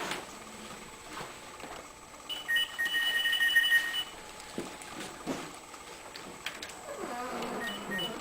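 Door alarm sounding a steady electronic tone made of two pitches, lasting about a second and a half and starting a little over two seconds in; it starts sounding again just before the end.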